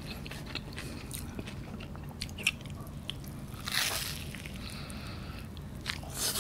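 Close-up eating sounds of cheese kunafa, shredded kataifi pastry with melted cheese: scattered small crackles, then a louder bite about four seconds in, followed by chewing.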